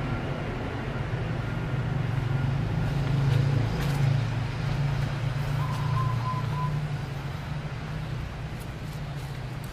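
A motor vehicle's engine running nearby, a steady low hum that grows louder toward the middle and then eases off. A short high tone sounds about six seconds in.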